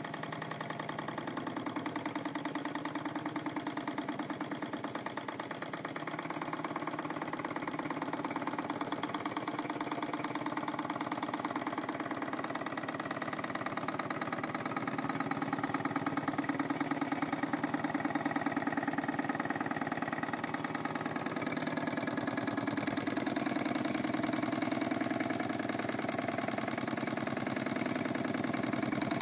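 Jensen Model 35 toy steam engine running steadily, its cylinder chuffing in a rapid, even beat. It gets a little louder after the first several seconds.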